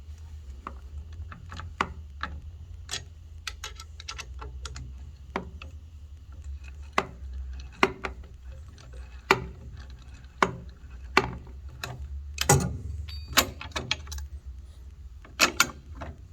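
Irregular metallic clicks and taps of an Allen key and adjustable wrench working a pulley bolt loose on an elliptical trainer, with a low steady hum underneath.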